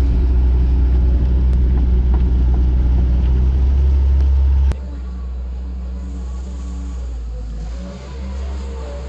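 Kobelco SK120 excavator's diesel engine running with a steady low drone, which drops abruptly to a quieter engine sound about five seconds in.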